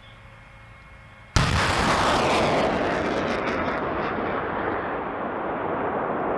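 M270 multiple launch rocket system firing a rocket. After a quiet start, a sudden blast comes about a second and a half in. It turns into a loud rushing roar of the rocket leaving, with a spatter of cracks, that fades slowly.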